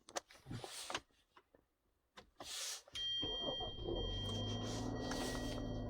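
A few small clicks and handling noises, then about three seconds in the 2011 Hyundai Sonata's engine is push-button started on its newly programmed proximity key and settles into a steady idle, with a steady high tone running alongside.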